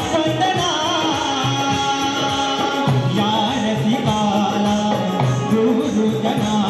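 Marathi devotional folk song (stavan) in the Konkan shakti-tura style: a male singer's voice with melodic accompaniment and steady hand-drum strokes.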